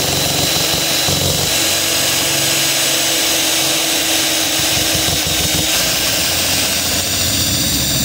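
Electric drill with a step bit running steadily under load, drilling out a steel rivet that holds a car door speaker. The rivet is stubborn and will not drill out.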